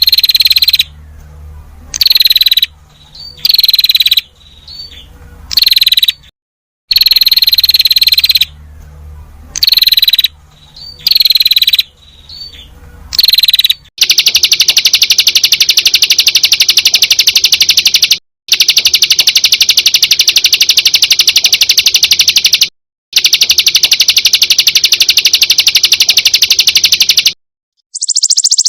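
Looped recording of high animal calls used as song material for training songbirds. First come short rapid trills about a second apart, each ending in a falling note, with the same sequence played twice. About halfway through, a continuous fast buzzing trill takes over, broken by three short gaps.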